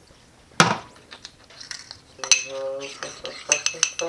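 A spoon clinking against a small ceramic ramekin while stirring a vinegar, salt and cornstarch mixture: a sharp knock about half a second in, scattered light clinks, then a quick run of clinks near the end. A brief pitched tone sounds midway.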